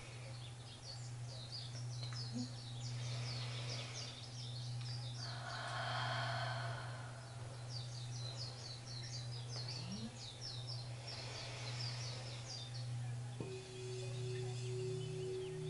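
Quartz crystal singing bowl sounding a steady low tone, with a second, higher tone joining after a light strike near the end. Birds chirp in quick bursts over it, and one slow deep breath is heard about six seconds in.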